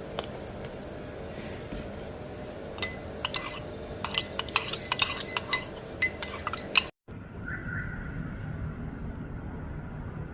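Cutlery and dishes clinking in a quick run of light knocks for about four seconds. The clinking stops suddenly and is followed by a steady low background rumble.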